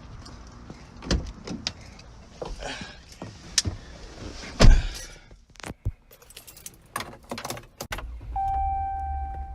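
Someone getting into a Dodge pickup: keys jangling and scattered clicks and knocks, a heavy thump of the door shutting about halfway through, then near the end the engine starts into a steady low hum and a steady electronic warning chime comes on.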